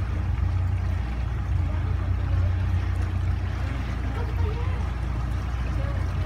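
Motorboat under way: its engine runs as a steady low drone beneath the rush of water along the hull.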